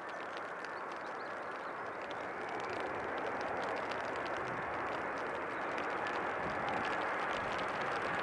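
Jet airliner's engines, a steady rushing noise that grows louder throughout, with a faint steady whine above it.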